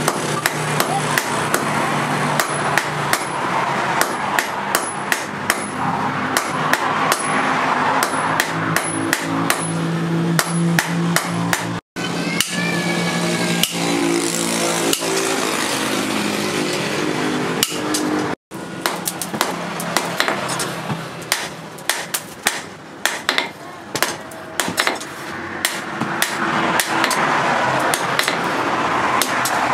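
Hand hammer beating a red-hot steel machete blank on a small steel anvil, a quick run of sharp metal-on-metal strikes several times a second, broken by two very short dropouts.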